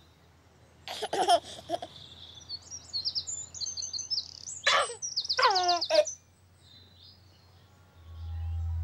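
A baby giggling and cooing, once about a second in and again around five seconds, with birds chirping in quick high trills in between. Low music tones fade in near the end.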